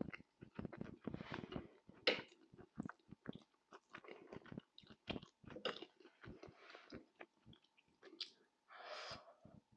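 Close-miked chewing of tagine: an irregular run of short mouth clicks and smacks, with a longer breathy sound near the end.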